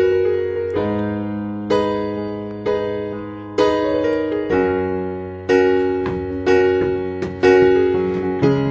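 Background piano music: slow keyboard chords struck about once a second, each left to ring and fade before the next.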